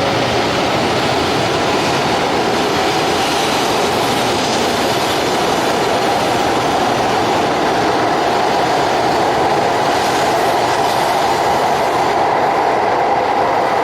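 N700S Shinkansen train (Kamome) running at speed: a steady rushing rail noise with a held tone in the middle range that rises slightly near the start.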